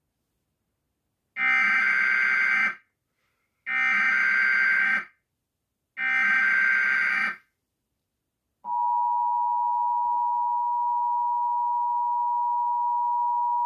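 Emergency Alert System tones. Three bursts of screechy digital SAME header data, each about a second and a half long, are followed about nine seconds in by the steady two-tone attention signal, which holds on. These tones herald a tornado warning.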